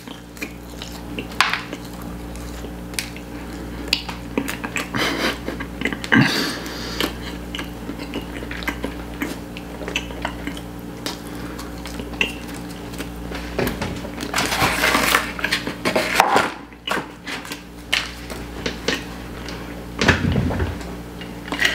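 Close-miked chewing and mouth sounds of a person eating aloo paratha flatbread: wet smacks and clicks, over a steady low hum. Near the end, a sip through a straw.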